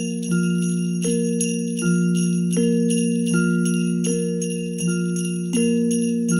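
Instrumental Christmas music: jingle bells shaken in a steady rhythm over low held notes that change about every three quarters of a second.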